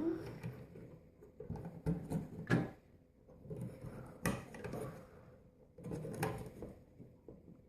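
Plastic Lego pieces being handled as a minifigure is fitted into a Lego jet's cockpit: light rustling with several separate plastic clicks and knocks.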